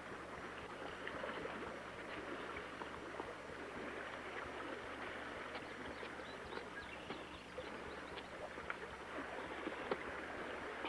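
Steady rushing noise of a creek running under a wooden footbridge, with scattered light ticks and one sharper tap near the end, over a low steady hum.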